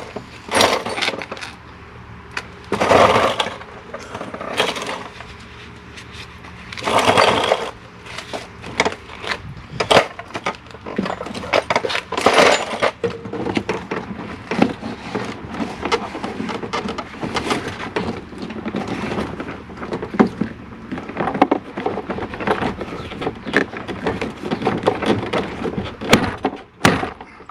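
Hard plastic door-trim parts and a door handle assembly being handled and worked into place: many clicks, knocks and rattles, with a few longer scraping pushes.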